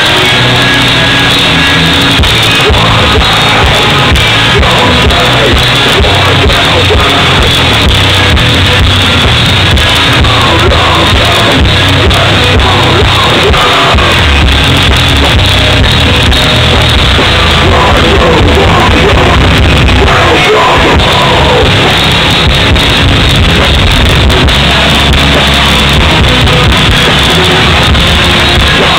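A hardcore band playing live at full volume: electric guitars, bass and drums with shouted vocals.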